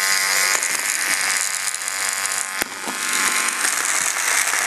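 Small battery-powered Hexbug toy robots buzzing and rattling as they skitter over a hard kitchen floor, a steady dense high buzz. A single sharp click about two and a half seconds in.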